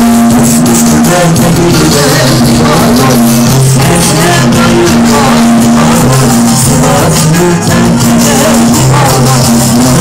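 Loud live music played through a sound system, with a repeating bass line, a melody over it and rattling percussion.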